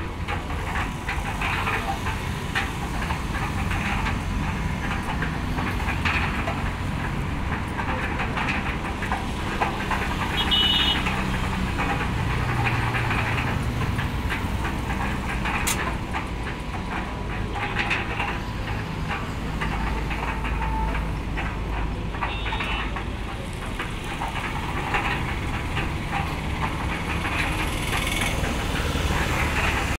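A 120-litre mini concrete mixer running empty: a steady motor hum with a continuous rattling clatter from the turning drum and its gearing.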